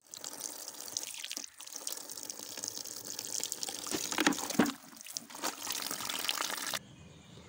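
A stream of water running and splashing into a metal bucket full of cloths being rinsed, with louder sloshing around four seconds in as a hand stirs the cloth. The flow stops suddenly near the end.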